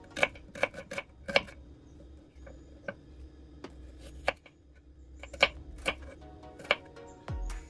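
Irregular sharp taps and knocks from kitchen preparation, about a dozen, some with a short ring, over faint background music.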